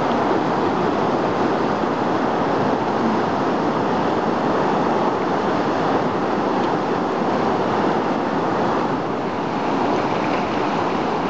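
Whitewater of a river rapid rushing steadily, an even, unbroken noise.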